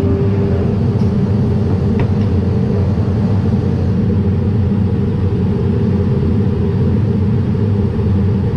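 Masterwood Project 415 CNC machining centre running with a steady, loud low rumble and a steady hum that fades out about four seconds in.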